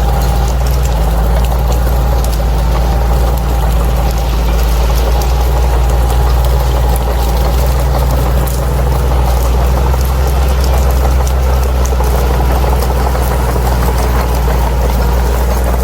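Bulldozer's diesel engine running steadily, with scattered light clicks and rattles over it.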